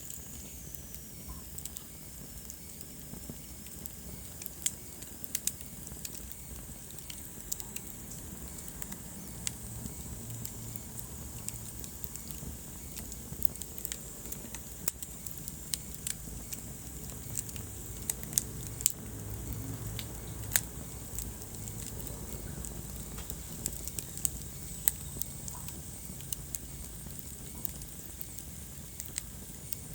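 Wood fire in a fireplace crackling, with irregular sharp pops and snaps over a steady low rumble of burning flames.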